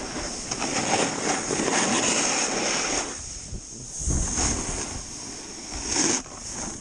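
Snowboard sliding down a snowy slope, the board's edge scraping over the snow in two long surges with a brief lull between, mixed with wind rushing over the camera's microphone.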